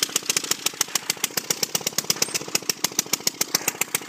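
The circa-1920 Merry Garden Auto Cultivator's two-stroke Evinrude engine running, each firing a sharp pop, about ten a second and slightly uneven.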